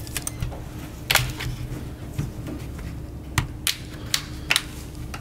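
Sharp plastic clicks and knocks, about eight scattered through, the strongest about a second in, as a plastic guitar pick pries at the clips of a laptop's plastic bottom cover and the laptop is handled.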